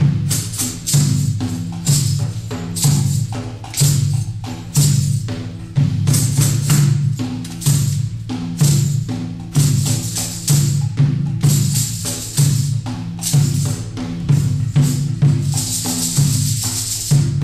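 Live drumming on a large hand-held frame drum and a barrel-shaped drum, playing a steady rhythm of deep strokes about once a second with sharper, brighter slaps between them. A sustained high shimmer, like jingles shaken, runs for about a second near the end.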